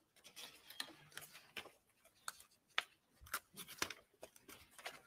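Paper notes and a manila folder being handled and leafed through close to a microphone: a run of irregular crisp rustles and taps.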